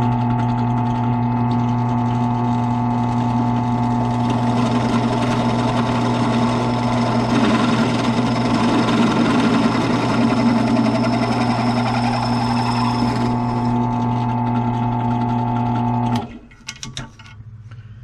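Benchtop drill press running with a steady motor hum while its twist bit bores out the hole of a metal ring terminal, the cutting adding a gritty rasp from about four to thirteen seconds in. The motor stops about sixteen seconds in, followed by a few light clicks.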